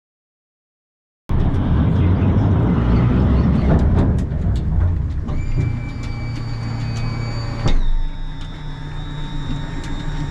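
Boat's outboard engine idling with a steady low rumble that cuts in suddenly after a second or so of silence, with scattered knocks and clicks. A steady high whine joins about halfway through and drops in pitch a couple of seconds later.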